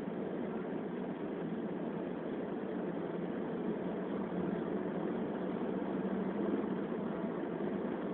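Steady driving noise inside a moving car's cabin, with tyre and road noise and the engine's hum blended into an even, low noise that does not change.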